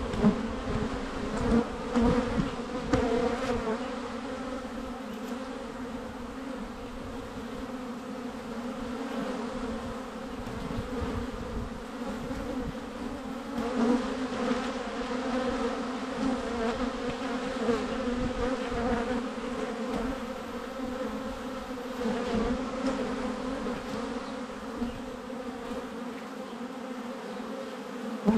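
Many honeybees buzzing as they fly in front of the hive entrance: a steady, many-voiced hum, with louder swells as single bees pass close, mostly in the first few seconds.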